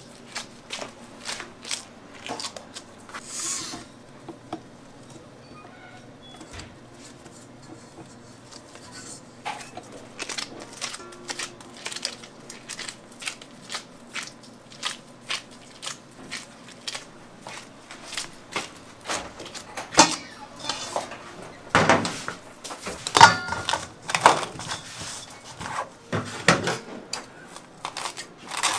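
Kitchen handling sounds as gloved hands shape a ball of bagel dough: scattered soft taps and clicks, then louder clattering of a stainless steel bowl in the last third.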